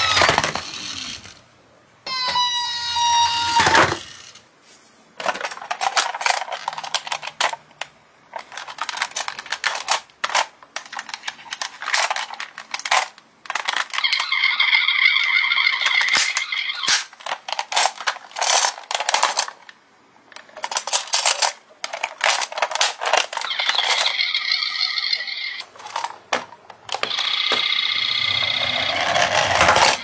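A toy's electronic siren wails and winds down in the first few seconds. It is followed by many clicks and rattles of a plastic toy ambulance being handled, with a few short spells of a steady high electronic tone from the toy.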